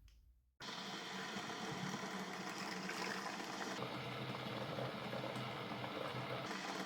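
Hamilton Beach Scoop single-serve coffee maker starting its brew cycle: about half a second in, a steady low hum with an even hiss of water heating and pumping sets in and holds.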